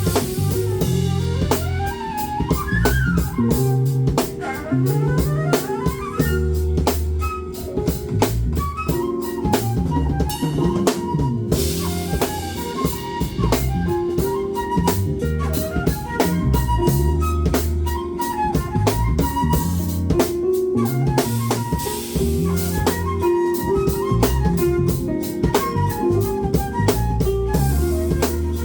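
Live band music: a drum kit with kick drum and cymbals keeping a steady groove under a bass line and a melodic lead.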